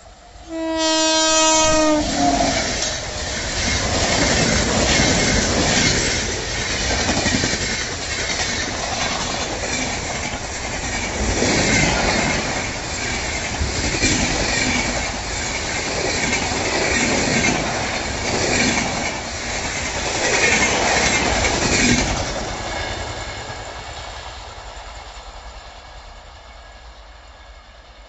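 WAP7 electric locomotive sounding its air horn for about a second and a half, the pitch dropping at the end. Then a long passenger train rushes past at speed for about twenty seconds, its wheels clattering rhythmically over the rails, and the sound fades away as the last coaches recede.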